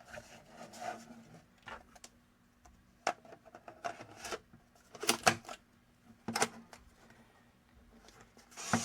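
Sharp plastic clicks and snaps from a Polaroid Flip instant camera being handled as a film pack is loaded. Near the end the camera's motor starts a high whir as it pushes out the film pack's dark slide.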